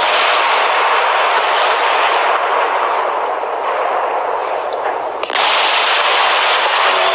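Fireworks going off in a loud, dense, continuous crackle. A sudden break a little past five seconds leads straight into another equally dense stretch.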